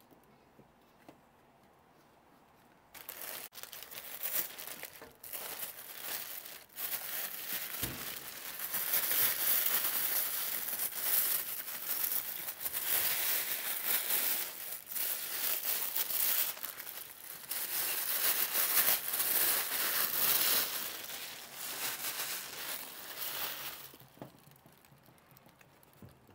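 Clear plastic bag crinkling and rustling as a work boot is pulled out of it. The crinkling starts about three seconds in and stops shortly before the end.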